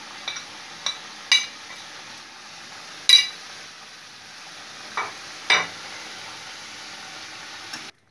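Curry simmering with a steady sizzle in a metal kadai, while a metal spoon clinks against the pan about five times, the loudest about three seconds in with a short ring. The sound cuts off suddenly near the end.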